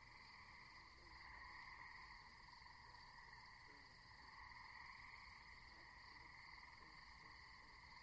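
Faint, steady night chorus of insects and frogs, swelling and easing gently every few seconds.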